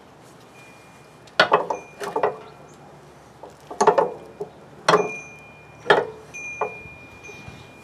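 Sharp metal clanks and clinks, about six spread through a few seconds, several leaving a short thin ringing tone, as a coil spring compressor's steel threaded rods and hooks are handled against a rear coil spring.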